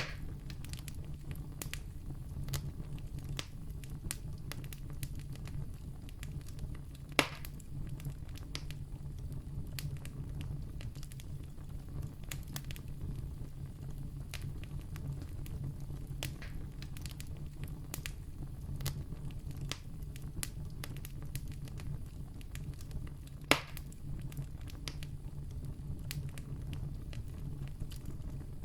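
Wood campfire burning steadily with a low rumble and frequent small crackles, and two louder sharp pops, one about a quarter of the way in and one near the end.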